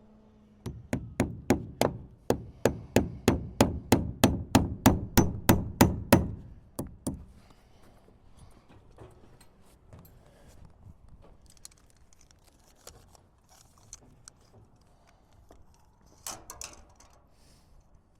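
Hammer driving 8d nails into a wooden fascia board: a fast, even run of about twenty strikes, roughly four a second, then two final blows. After that, only faint handling clicks.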